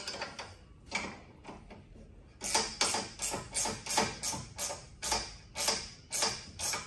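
Ratchet spanner tightening a bolt on a soft-top bar frame: a regular run of sharp ratcheting clicks, about three a second, starting about two and a half seconds in, with a few scattered clicks before.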